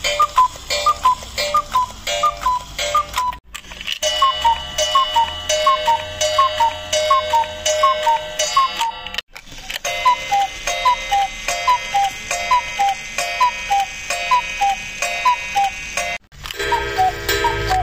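Cuckoo clocks calling one after another, each repeating the two-note falling "cuckoo" of its bellows-driven pipes over and over, with a mechanical click at each call. The sound breaks off abruptly three times as one clock gives way to the next.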